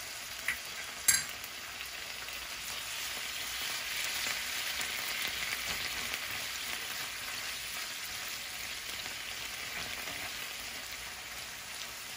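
Chicken broth sizzling in a nonstick frying pan over sautéed onion, bell pepper, garlic and tomato paste, with a wooden spatula stirring through it. There is a sharp knock about a second in.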